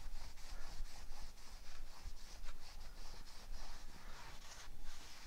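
A cloth damp with isopropyl alcohol rubbed over the face of a new DBA 4000-series T3 brake rotor in quick repeated strokes, wiping off fingerprints and residue before the wheel goes back on.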